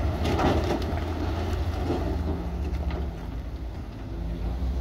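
Heavy earthmoving machine's diesel engine running with a steady low rumble, a little louder in the first second.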